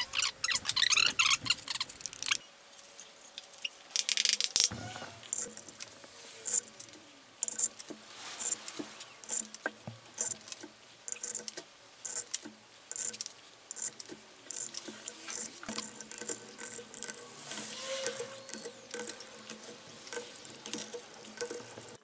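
Hand tools and small metal parts clicking, clinking and scraping against engine parts during reassembly: a rapid, irregular string of small metallic ticks, with a dull knock about five seconds in.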